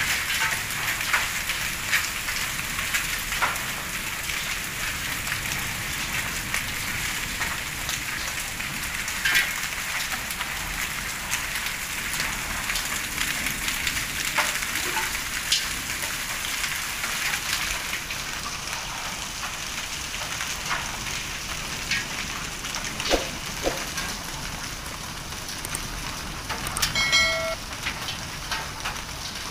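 Heavy hail mixed with rain falling on a concrete courtyard and a woven rope charpai: a steady hiss studded with many sharp ticks of hailstones striking. Near the end a brief high pitched sound cuts through.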